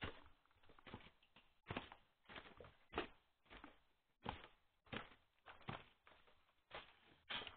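Footsteps climbing a staircase: a series of separate thuds and scuffs on the steps, roughly one every half second to second, irregular in strength.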